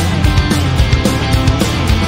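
Upbeat rock background music with guitar and a steady drum beat.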